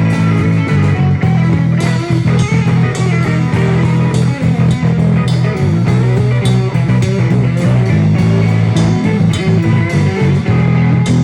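Live band jamming an instrumental rock groove: electric guitar playing over a steady bass guitar line, with drum hits keeping a regular beat.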